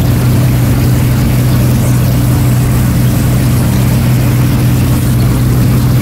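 A boat engine running steadily: a loud, even drone with a low hum and a constant hiss over it, not changing in pitch.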